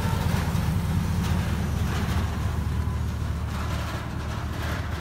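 Engine of a 1946 Ford pickup rat rod, running through short open exhaust pipes as the truck drives past and pulls away: a steady low rumble that fades slightly near the end.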